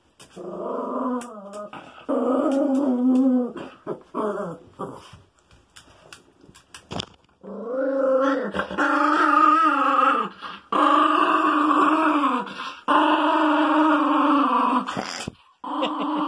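Small dog growling and grumbling in long drawn-out calls while it is rubbed dry with a towel, with a quieter pause of a couple of seconds partway through.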